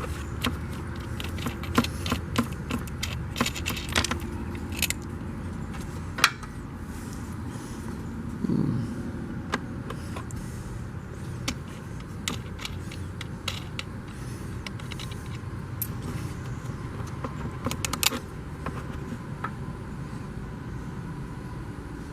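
Irregular metallic clicks and clinks of hand tools and hardware being handled, over a steady low hum. A short falling whirr sounds about eight seconds in.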